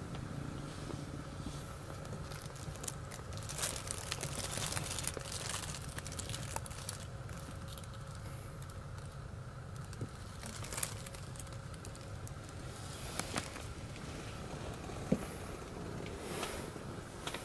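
Rustling, crinkling and scattered sharp clicks of hands handling the camera, over a steady low hum with a faint steady whine.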